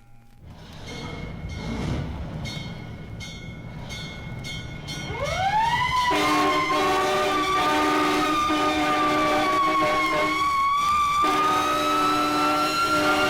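Sound-effect recording of an emergency vehicle, most likely a fire engine. It starts with a rumble and rhythmic clanging. About five seconds in, a mechanical siren winds up from low to a high wail and holds there, wavering slowly, over steady lower tones.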